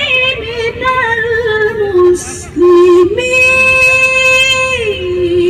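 A woman's voice reciting the Quran in melodic tilawah style, turning in quick wavering ornaments. After a short break for breath a little past halfway, she holds one long steady note, then steps down in pitch near the end.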